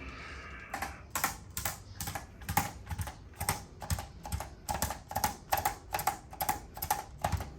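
A camera shutter clicking in a rapid, even series, about two or three clicks a second, as posture photos are taken.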